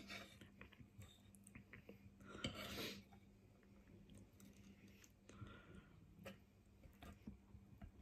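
Metal fork clicking and scraping against a wooden chopping board as food is picked up, with faint chewing. The loudest is a brief scraping noise about two and a half seconds in.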